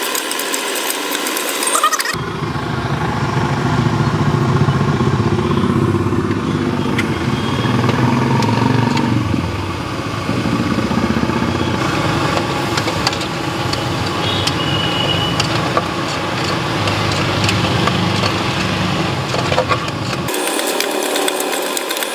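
Steady low engine rumble, like a motorcycle running close by, setting in about two seconds in and stopping shortly before the end. Metal clinks and scrapes of a steel spatula stirring egg bhurji in an aluminium pot come through, mostly near the start and the end.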